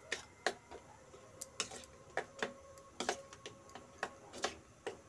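A steel spoon stirring yogurt and spices in a stainless steel bowl, clinking against the bowl in irregular taps, two or three a second, with a faint ring from the metal.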